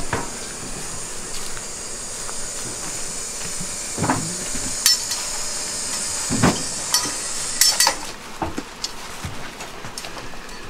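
Wooden beehive boxes and frames being set down and handled, giving a handful of separate knocks and clicks over a steady high hiss. The hiss stops about eight seconds in.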